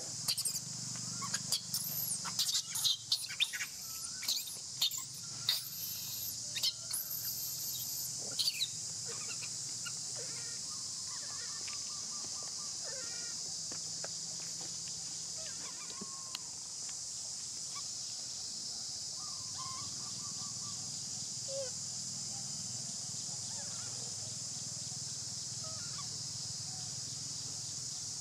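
Steady high-pitched drone of insects, with a run of shrill squeaks and chirps over roughly the first eight seconds and a few fainter calls later.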